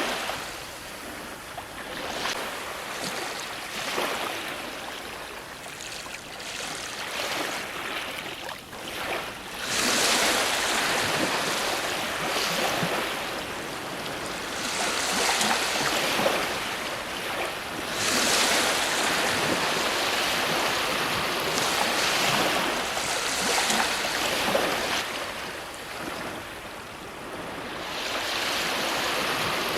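Ocean waves breaking on a shore, the surf swelling and falling away in surges every few seconds, with the strongest breakers about ten seconds in, near eighteen seconds, and again near the end.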